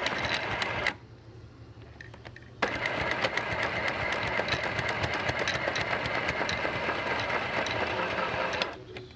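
Small electric sewing machine stitching Velcro onto a lunch pail, its needle going in rapid strokes over a steady motor hum. It runs for about a second, stops for about two seconds, then starts again abruptly and runs for about six seconds before stopping near the end.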